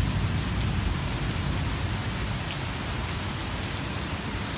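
Rain falling steadily in a thunderstorm, with single drops striking close by. A low rumble of thunder fades out over the first couple of seconds.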